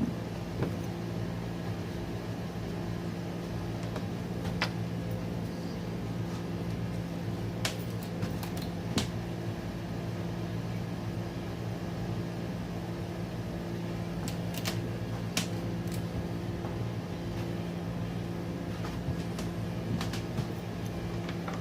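Steady low machine hum, like a fan or air conditioner, with a handful of short, sharp clicks and knocks scattered through it.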